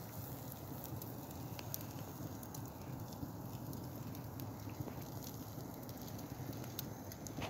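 Wood fire crackling, a steady hiss with scattered sharp pops, under fish grilling in a wire basket.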